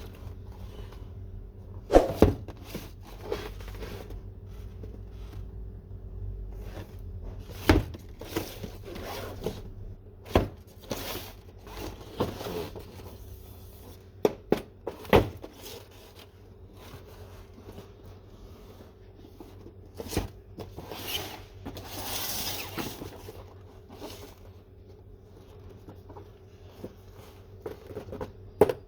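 Packaging of a boxed model car being handled: scattered knocks and thumps, with a longer rustling scrape about 21 to 23 seconds in.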